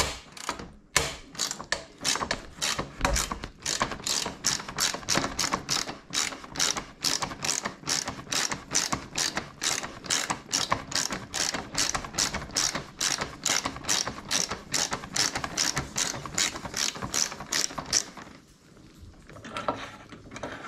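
Hand ratchet wrench clicking steadily, about three clicks a second, as a bolt holding the side-case mounting bracket is undone; the clicking stops a couple of seconds before the end.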